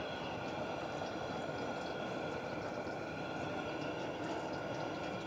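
Propane burner of a Loco turkey fryer running with a steady rushing hiss as it heats the pot of frying oil.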